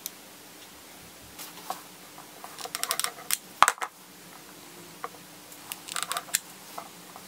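Steinel hot glue gun being worked while gluing a cord onto an MDF board: two short runs of quick small clicks and rattles, with one sharper knock about three and a half seconds in, over a faint steady hum.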